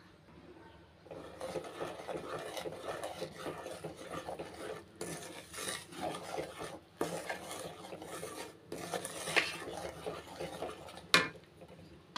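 Spatula stirring and scraping rice flour into hot jaggery syrup in an aluminium kadai. A steady scratchy rasp with short pauses, and two sharper knocks of the spatula against the pan in the last few seconds.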